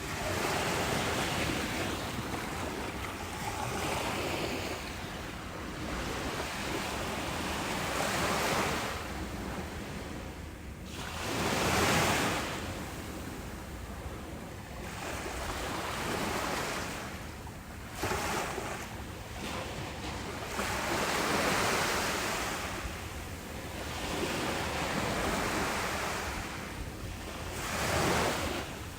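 Ocean surf breaking and washing up a beach: a noisy rush that swells and fades every few seconds, with the biggest waves about twelve seconds in and near the end.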